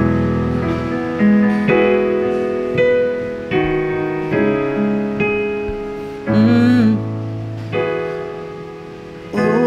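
Digital piano played slowly: a string of chords, each struck and left to ring and fade before the next. About six seconds in there is one wavering held note.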